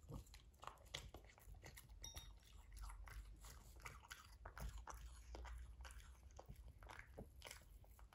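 French bulldog chewing a hand-fed piece of food: a run of small, irregular crunching clicks.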